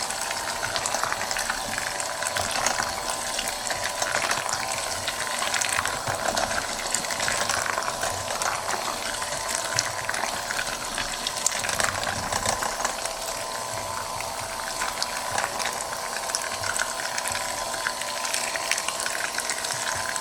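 Hamilton Beach Professional electric hand mixer running with cake beaters, shredding cooked chicken in a bowl: a steady motor whine with constant clicking and rattling as the beaters strike the bowl and meat.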